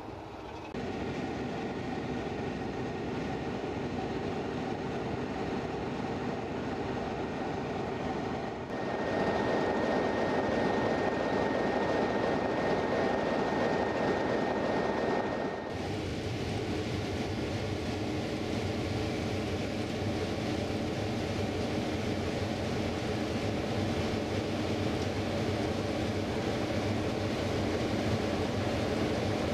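Diesel locomotive engine idling steadily, with abrupt shifts in level and tone about a second in, about 9 s in and about 16 s in; the loudest stretch, in the middle, carries a steady high whine. From about 16 s on it is heard from inside the cab of Class 33 No. 33202, whose Sulzer eight-cylinder engine runs at idle with a stronger low hum.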